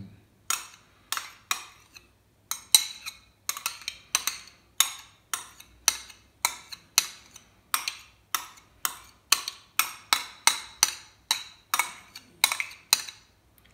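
Metal spoon scraping mayonnaise out of a plastic pack onto a plate: a quick, irregular run of sharp clicks and knocks, about two or three a second.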